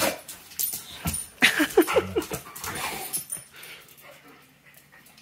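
Two dogs play-fighting on a tile floor: quick clicks and scrabbles of claws, with a short run of whining yips about a second and a half in.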